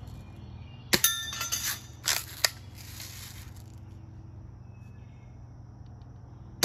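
Daisy Model 1999 lever-action BB carbine firing: a sharp shot about a second in, followed by a brief metallic ring and a couple more clicks shortly after, then another shot right at the end.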